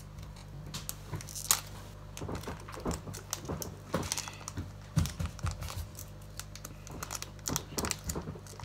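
Foil Pokémon booster pack wrapper crinkling and crackling in irregular sharp clicks as it is picked at and torn open by hand.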